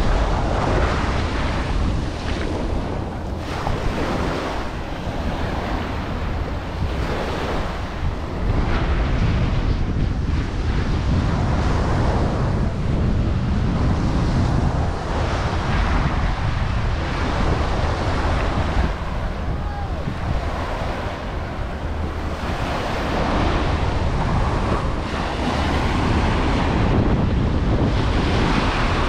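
Ocean surf breaking and washing ashore, swelling and easing every few seconds, with wind rumbling on the microphone.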